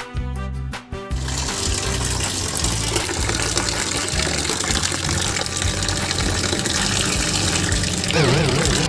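Background music with a steady beat, overlaid from about a second in by a long, steady rushing noise like pouring or gushing water, with a warbling tone near the end.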